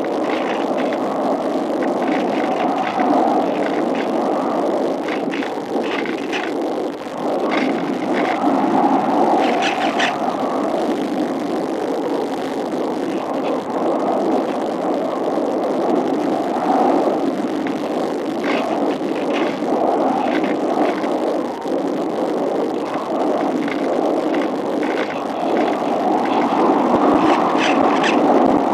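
Steady rushing wind and airflow noise on the onboard microphone of a Cularis FPV glider in flight, with scattered short crackles.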